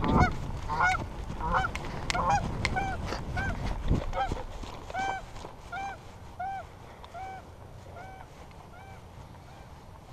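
Geese honking: many calls overlapping at first, then thinning to one goose's regular honks, about two a second, that grow fainter and stop near the end. Wind and camera-handling rumble run under the first four seconds, ending in a thump.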